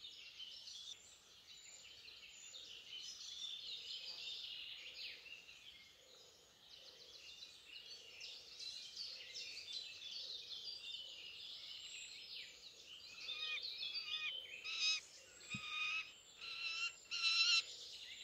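Dense woodland birdsong of chirps and trills runs throughout. Over the last five or six seconds a bird gives a series of loud, harsh pitched calls, the loudest sounds here. These fit young peregrine falcons calling at the plucking post where their parents bring them prey.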